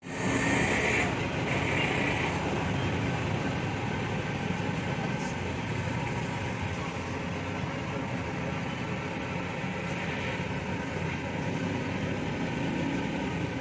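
Steady rumble of street traffic and idling engines, with no distinct events.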